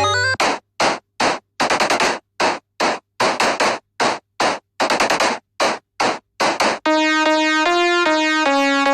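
Retro-style synthesized music. A pitched synth melody breaks off, then a run of short, noisy drum-like hits plays for about six seconds, and a stepping synth-keyboard melody comes in near the end.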